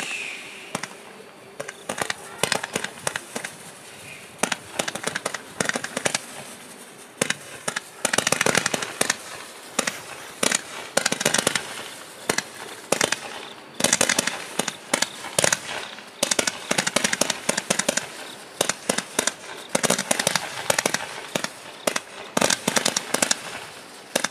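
Iron Claw Freeze Frame 200 g combination candle firing shot after shot, each launch a sharp pop. Between the launches come spells of dense, rapid crackling from the strobe effects.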